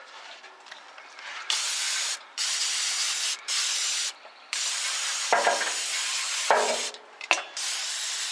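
Aerosol can of brake cleaner spraying in a series of long hissing bursts, starting about a second and a half in, to wash spilled brake fluid off before it eats the paint.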